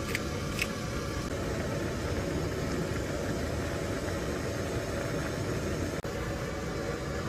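Portable canister gas stove burner hissing steadily under a pan of ramen at a rolling boil, with two short scissor snips near the start as green onion is cut into the pot.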